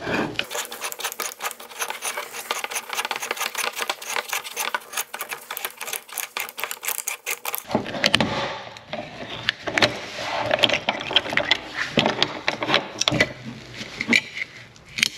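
Oil filter cutter's wheel scoring round the steel can of a used Wix oil filter as the can is turned by hand: a fast, even run of clicks for about seven seconds. After that come irregular metallic knocks and scrapes as the cut can is worked free and its lid lifted off.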